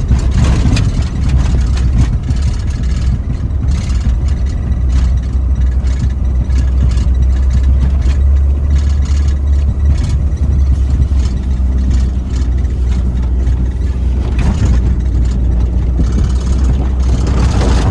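Chevy Tracker's engine running steadily while plowing snow: a deep, continuous drone with scattered knocks and scrapes.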